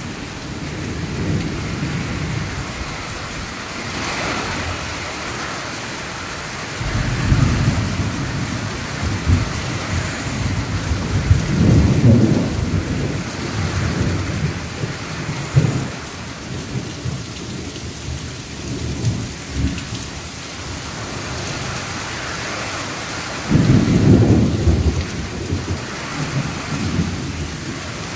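Heavy rain pouring down steadily in a thunderstorm, with thunder rolling in low rumbles three times, the last near the end the loudest.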